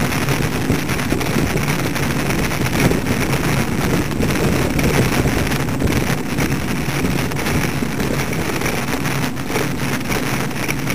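Steady wind rush and low rumble on the microphone of a camera riding on a moving bicycle.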